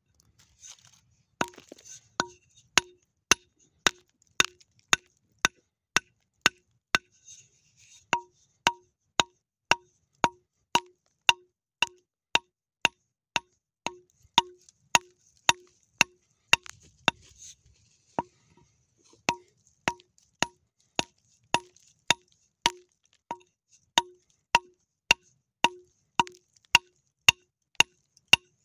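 Steady hammer blows on a steel chisel against rock, about two a second with a brief pause, each blow giving the same short metallic ring.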